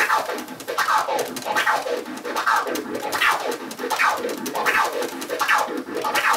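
A record scratched on a DJ turntable in four-click orbits. The record is pushed forward and pulled back in even strokes, a little under a second each, with the crossfader clicking each stroke into several short sweeps of the sample.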